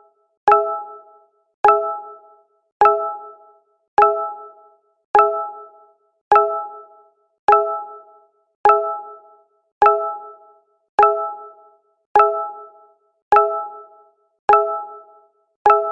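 Google Hangouts notification sound: a short chime with a sharp start and a quick decay, repeated about once every 1.2 seconds.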